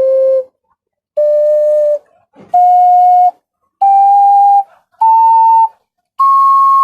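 Five-hole ocarina playing an ascending pentatonic scale: six separate held notes, each a step higher than the last, the top note an octave above the first.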